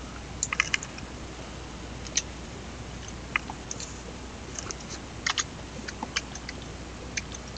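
Computer keyboard keys tapped in short, irregular runs of clicks as numbers are typed in, over a faint low steady hum.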